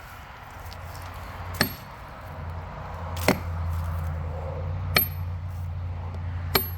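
Four evenly spaced blows, about one every second and a half, of a hammer driving a 12-inch steel felling wedge into the cut of a tree, each strike a sharp metallic clank with a high ring. A low steady hum rises underneath from about a third of the way in.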